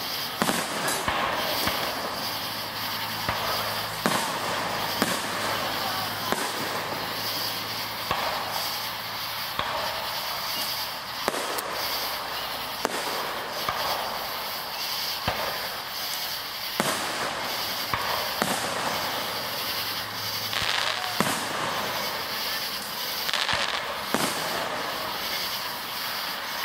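Aerial fireworks display: shells bursting one after another at irregular intervals, a sharp bang every second or two over a steady background din.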